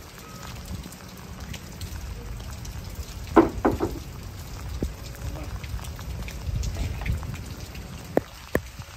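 Steady rain with wind rumbling on the microphone. About three and a half seconds in, two clanks as a metal ladder is set against the boat's stern platform, and near the end two sharp knocks as the ladder is climbed.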